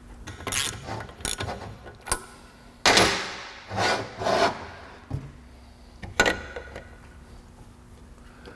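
A Saginaw power steering pump handled during reassembly: the retainer fitting is turned in by hand and the chrome pump body is turned over on a steel workbench. Scattered metal clicks, scrapes and rubbing, loudest about three seconds in.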